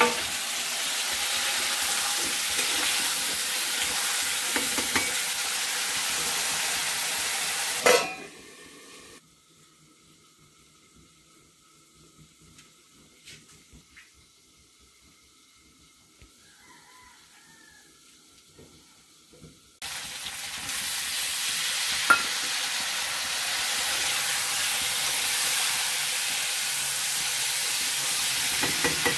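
Taro pieces sizzling in hot oil in a kadhai and being stirred. About 8 seconds in there is a loud clunk, then a quiet stretch of about ten seconds with only faint room sounds. The frying and stirring start again about 20 seconds in.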